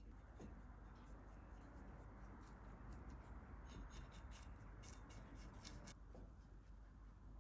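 Faint scraping and rubbing, with a run of small light clicks from about three and a half to six seconds in.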